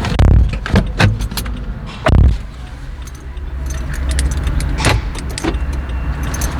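A car door being shut, with heavy thumps about a quarter second and two seconds in, among sharper clicks and the jingle of key fobs being handled.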